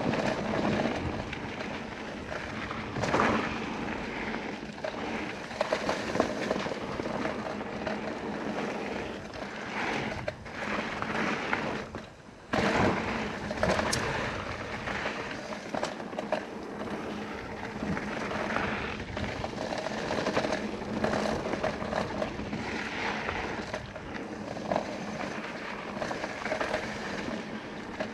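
Mountain bike rolling fast down a dirt trail: knobby tyres rushing over packed dirt and gravel, wind buffeting the camera microphone, and the bike rattling and knocking over bumps. The noise drops away briefly near the middle.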